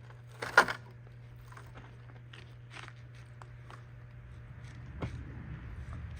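Footsteps crunching through dry leaves and brush, with one loud crunch about half a second in, over a faint steady low hum.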